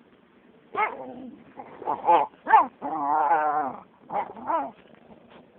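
A dog whining and yelping: a few short calls, then one longer wavering whine, then a last short pair.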